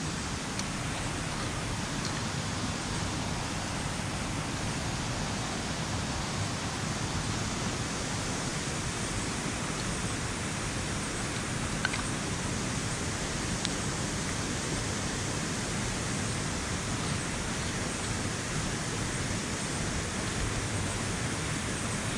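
Steady, even rush of a seven-tier waterfall's falling water, with a couple of faint ticks near the middle.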